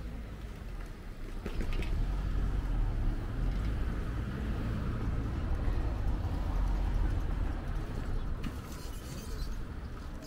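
A motor vehicle passing by: a low engine and road rumble that swells about two seconds in, holds, and eases off near the end.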